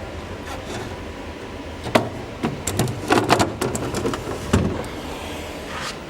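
Handling sounds of loading a refrigerator: a sharp click about two seconds in, a quick run of knocks and clatter around three seconds, and a dull thump a little later.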